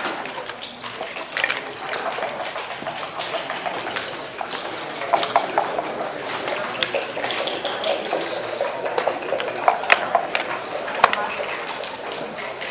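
Backgammon checkers and dice clicking and clattering on the board, a scattering of sharp clicks over a steady hiss of room noise.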